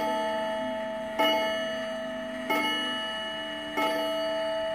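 Gold Cup Japanese 31-day pendulum wall clock striking the hour on its gong with its hands at twelve: about four strokes roughly 1.3 seconds apart, each ringing on and fading before the next.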